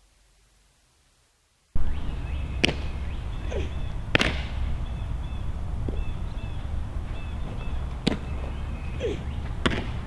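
Near silence, then after about a second and a half, outdoor field sound with a steady wind rumble on the microphone, birds chirping, and four sharp smacks of a softball landing in a leather catcher's mitt during a catching drill.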